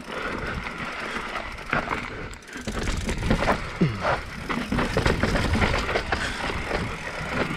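Mountain bike riding down a rough, dusty trail: tyres running over loose dirt and rock, with frequent knocks and rattles from the bike, over a low wind rumble.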